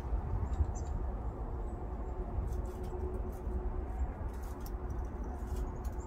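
Steady low background rumble with scattered faint, short high ticks, mostly in the second half.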